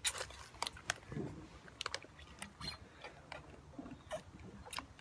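A child eating fizzy sour sweets from a plastic bag: irregular crunching and sharp clicks from chewing and the crinkling bag.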